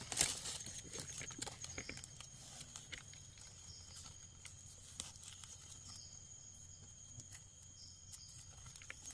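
Light rustling and crackling in forest leaf litter, with scattered soft taps and crackles from someone moving about while searching for mushrooms. There is a louder knock right at the start and a faint steady high tone throughout.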